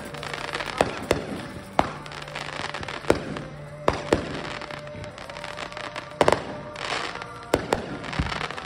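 Aerial fireworks going off: about ten sharp bangs of shells bursting at uneven intervals, some in quick pairs, with a burst of crackling around the seventh second and again near the end.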